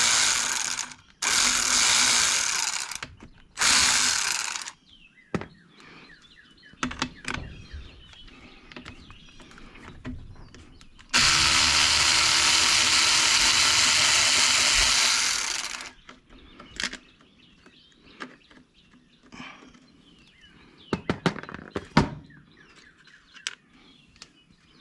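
A power tool spinning off small nuts: two short runs and a third brief one in the first five seconds, then one longer run of about five seconds in the middle, with light clicks and taps of metal parts between the runs.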